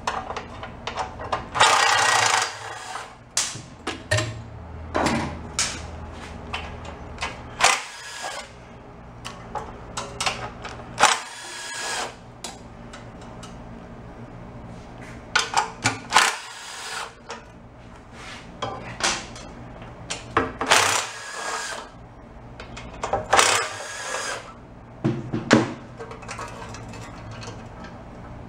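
Cordless driver spinning out the bolts of a small engine's recoil starter housing in several short bursts of about a second each, with clinks of metal parts and handling in between.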